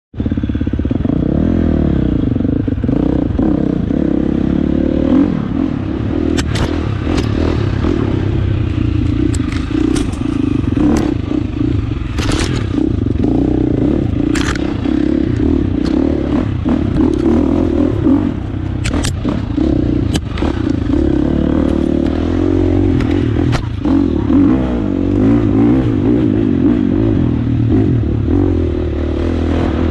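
Dirt bike engine running and revving as it is ridden along a rough trail, its pitch wavering up and down. Sharp knocks and clatters come here and there, about a dozen of them, as the bike goes over the rough ground.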